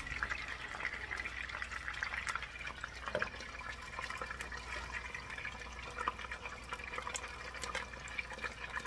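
Chicken pieces sizzling in shallow canola oil in a frying pan: a steady hiss full of small crackles and pops. The oil is only moderately hot, since the chicken went in before the oil had heated.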